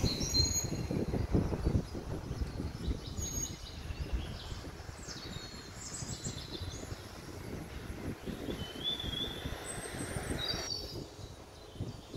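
Outdoor ambience: several short bird chirps and calls scattered over a low, uneven rumble.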